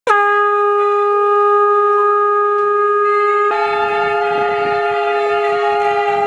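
Conch shells (shankha) blown in long, steady held notes. One conch starts abruptly, and a second conch at a slightly different pitch joins about halfway through.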